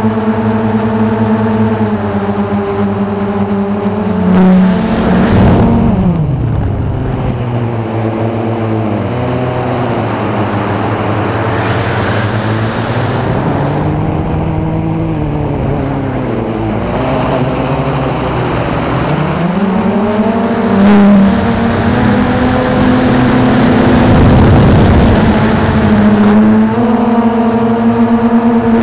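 Blade 350 QX3 quadcopter's four brushless motors and propellers whining, heard from on board the drone. The pitch drops steeply about five seconds in, wavers lower through the middle, and climbs back about twenty seconds in, then holds steady.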